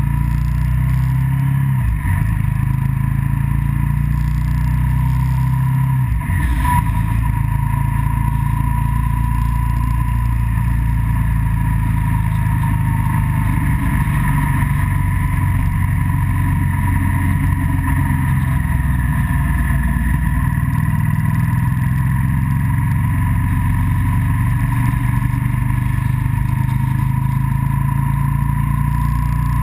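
Vehicle engine running steadily under way, with road and wind noise. The engine sound drops away briefly twice, about two and six seconds in.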